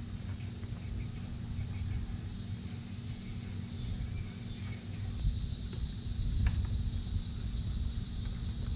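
Outdoor background sound: a steady high hiss that grows stronger about five seconds in, over a low rumble, with a single click about six and a half seconds in.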